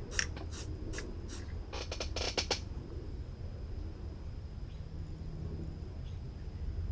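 Soldering iron tip being scraped clean in a tip cleaner: a few separate scratchy strokes, then a quick run of them about two seconds in. A low steady hum sits underneath.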